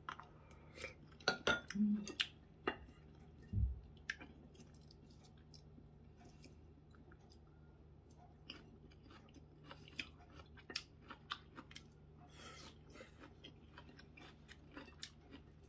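A person chewing a mouthful of food close to the microphone, with many short wet mouth clicks, busiest in the first few seconds. A dull knock sounds about three and a half seconds in, over a faint steady low hum.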